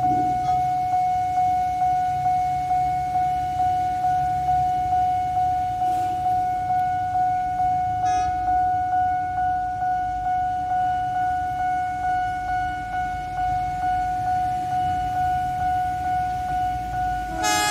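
Railway level-crossing warning bell ringing on one tone at about two strikes a second. A short horn blast sounds about eight seconds in, and near the end the approaching locomotive's horn sounds loudly.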